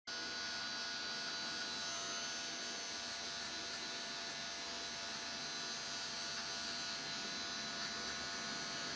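Cordless hair clipper (Wahl Magic Clip) running with a steady buzz as it is passed over short hair at the side of the head.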